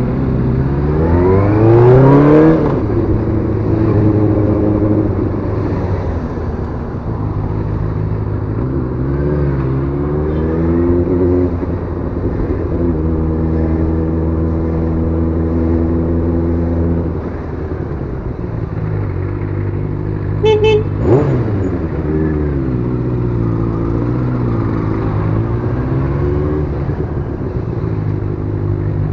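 Benelli TNT600S inline-four motorcycle engine. It revs up over the first couple of seconds, holds steady, rises again around ten seconds in, and eases back and forth with the throttle at low speed. A short double horn beep sounds about twenty seconds in, followed by a quick rev blip.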